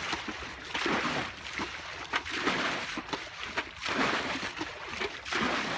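Muddy pond water being scooped with a plastic pot and thrown out, a splash and slosh about once a second: the pond is being bailed out by hand to get at the fish.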